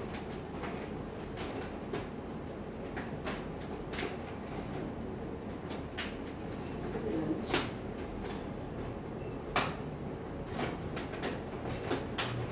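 Self-adhesive vinyl sheet being peeled from its backing liner and handled, giving irregular crackles and snaps, the sharpest two a little past the middle.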